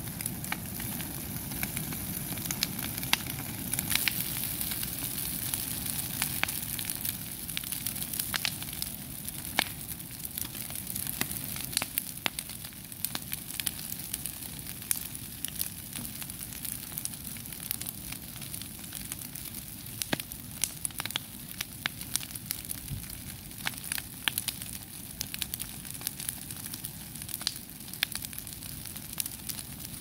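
Bonfire of dry palm fronds burning: frequent sharp crackles and pops at irregular moments over a steady rushing hiss of flame.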